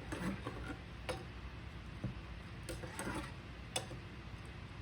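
Light clicks and taps of kitchen things being handled, about half a dozen scattered over a few seconds, over a faint steady hum.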